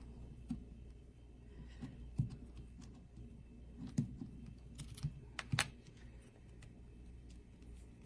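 Scattered small clicks and taps from handling a motorcycle alarm disc lock while the screws of its battery panel are taken out, with more of them about four to six seconds in.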